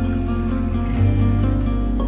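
Background music: calm plucked-string or guitar tune with steady held bass notes.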